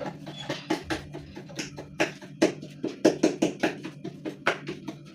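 A fork stabbing repeatedly into raw goat meat to tenderise it, making quick irregular sharp taps about three a second.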